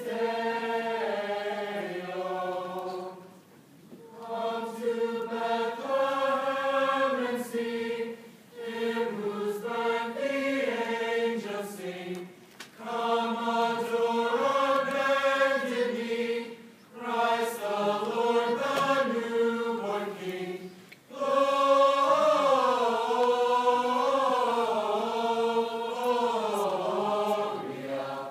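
Choir singing a slow song in sustained phrases, with brief pauses for breath every four to five seconds; the last phrase, starting about three quarters of the way in, is the longest and loudest.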